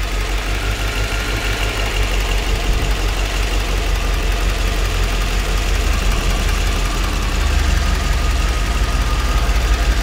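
1992 Corvette V8 idling steadily, with a misfire that the technician traces to a shorted fuel injector on cylinder 3.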